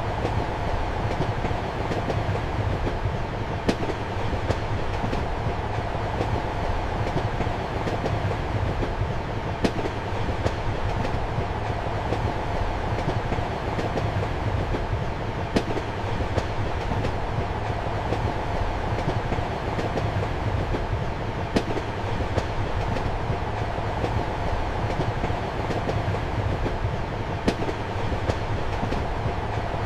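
Moving train heard from inside a compartment: a steady rumble and hum of wheels on track, with a sharp wheel click over a rail joint about every six seconds.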